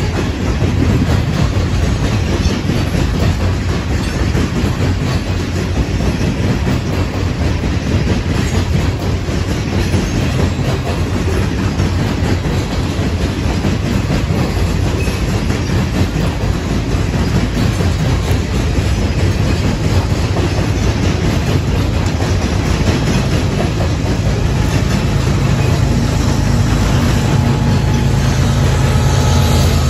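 Loaded coal cars of a freight train rolling past, a steady rumble with the clickety-clack of steel wheels on rail. Near the end the mid-train GE Evolution Series diesel locomotive approaches, adding a steady engine drone and whine that grows louder.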